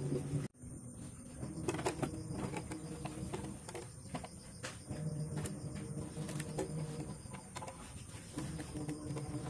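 A long metal bolt being slid and tapped through a clear plastic jar, with a few light clicks, over a steady high tone and a low hum that comes and goes.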